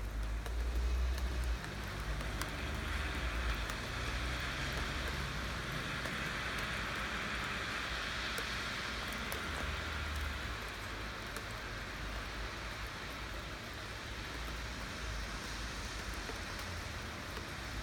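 Rain falling steadily, with scattered sharp drip ticks over a low rumble. The hiss of the rain swells for a few seconds midway, then settles.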